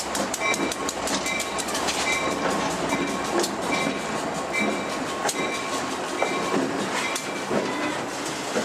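Freight train passing close by: the New England Central's diesel locomotives, including a GP38, go by and give way to boxcars, with steady rolling noise and sharp clicks of wheels over rail joints. A bell rings steadily, about once a second, and fades out near the end.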